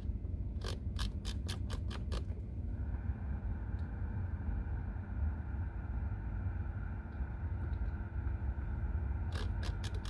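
Temperature knob of a BMW F30 dual-zone climate control panel clicking through its detents as it is turned: a quick run of about seven clicks, then about four more near the end. About two and a half seconds in, a steady hiss of air comes in over a low rumble.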